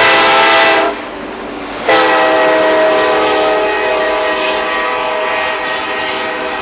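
Diesel locomotive air horn blowing a chord as a freight train passes close by. The first blast breaks off just under a second in, and a second long blast starts about a second later and holds. The locomotives' engines and the rolling wheels run underneath.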